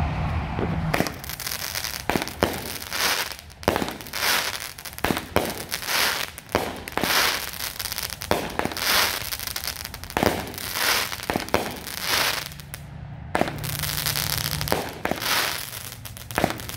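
A 200-gram, 16-shot consumer firework cake firing shot after shot, starting about a second in. Each shot is a sharp launch bang followed by a crackling break in the air, with a short lull near the end before more shots.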